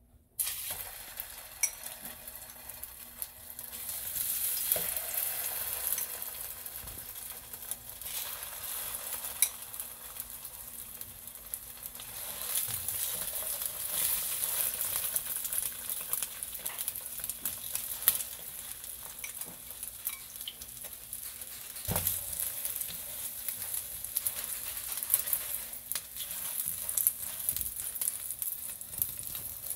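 Egg-dipped slices of Spam frying in oil in a nonstick pan, sizzling and crackling steadily. Tongs click against the pan now and then as the slices are turned.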